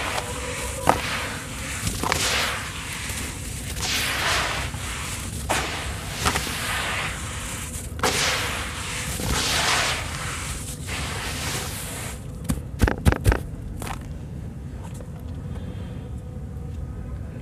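Hands crumbling and rubbing dry, crumbly sand-cement mix in a bowl: a gritty crunching swish every second or so. About thirteen seconds in comes a quick run of sharp clicks, and after that the crumbling goes quieter and steadier.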